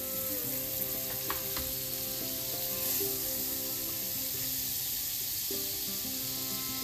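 Pancakes frying in butter in a hot nonstick pan, a steady sizzle, with a couple of faint clicks of a spoon about a second and a half in. Soft background music plays underneath.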